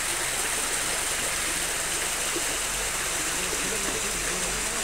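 A steady, even rush of water.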